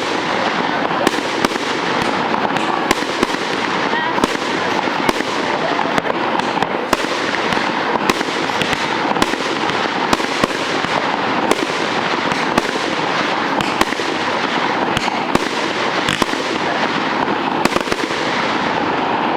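Fireworks barrage: a dense, continuous crackle with many sharp bangs in quick succession, easing off right at the end as the show finishes.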